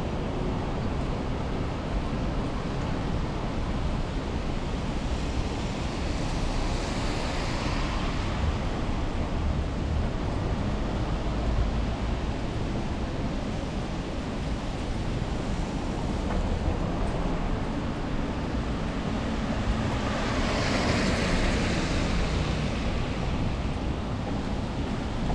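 Wet city street ambience: a steady hiss with low rumble, and two vehicles passing on the wet road, their tyre hiss swelling and fading about six seconds in and again about twenty seconds in.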